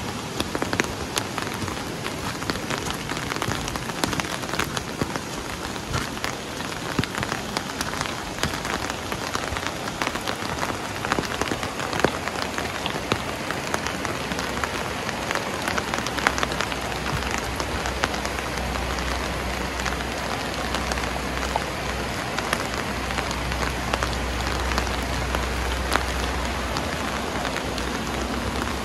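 Steady rain falling, with many single drops ticking sharply close to the microphone. A low steady rumble sits underneath through the second half.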